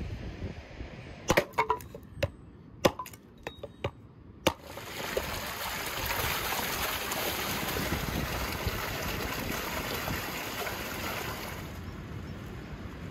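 Axe splitting firewood: several sharp chops in the first four and a half seconds. Then water runs steadily from a stone spring fountain, splashing into an enamel bowl as meat is rinsed, until it stops near the end.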